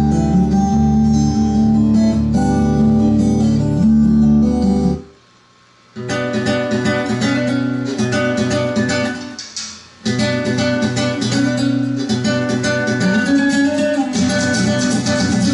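Guitar music played over a pair of Yamaha NS-55 loudspeakers driven by a Trio KA-7300D amplifier. The music cuts off suddenly about five seconds in, a second of silence follows, then another track starts; it fades briefly just before ten seconds and starts again.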